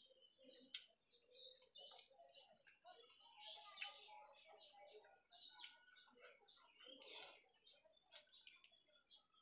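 Small birds chirping faintly and continuously. Occasional short sharp clicks come from eating by hand off a steel plate.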